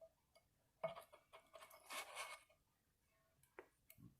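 Faint metallic clinks and scraping as a new driveshaft hanger bearing is worked onto the splined end of the driveshaft. A sharp clink about a second in is followed by a rattling scrape with a light ring. The bearing is a tight fit on the shaft.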